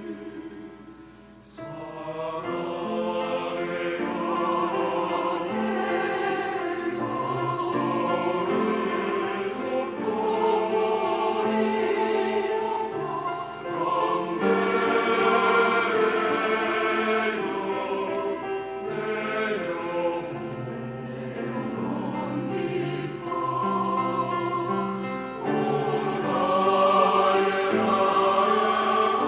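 Church choir singing a Korean worship song in several-part harmony. The sound drops briefly about a second in, then the voices come back in together and keep singing.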